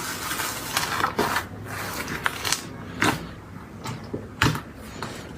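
Slime being squished and pressed by hand, with irregular crackling and popping.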